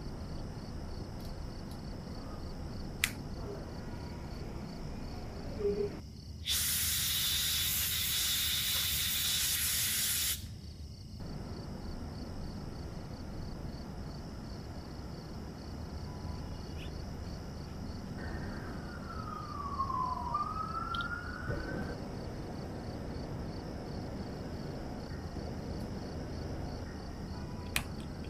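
A loud hiss lasting about four seconds, starting and stopping abruptly, over a steady background hiss; later a faint squeaky tone dips and rises once.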